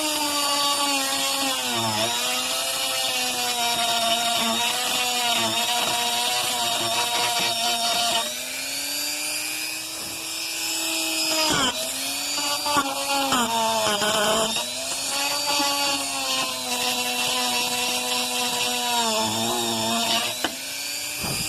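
Small handheld rotary tool grinding, its motor whine steady with sharp dips in pitch several times as it bogs against the work. It is roughing up the surface around a cracked radiator to prepare it for filler.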